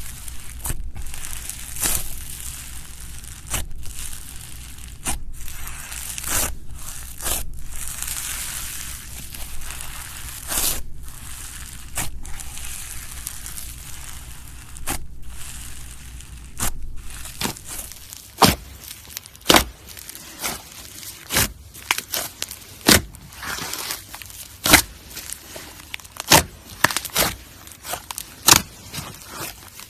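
Slushee slime being squished and worked by hand, with a crinkly crackling and frequent sharp clicks. About two-thirds of the way through the sound changes to separate, sharper pops and clicks roughly one a second as the slime is pressed.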